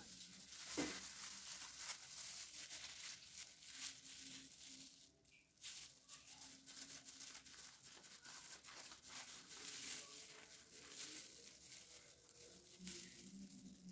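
Faint crackling and scraping of a serrated bread knife sawing through the crisp breadcrumb crust of deep-fried bread rolls, with a short lull about five seconds in.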